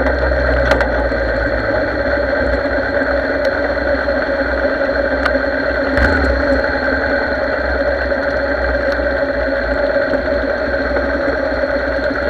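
Yamaha Drag Star's V-twin engine running steadily on the move, heard from a camera mounted on the bike, with the engines of other motorcycles in the group alongside.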